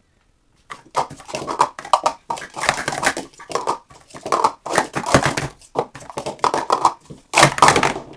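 Plastic sport-stacking cups (Speed Stacks) being stacked and unstacked at speed in a cycle stack: a rapid, unbroken run of clacks and taps as the cups slide and knock together. The loudest clatter comes near the end, where cups topple over in a fumble (a scratch).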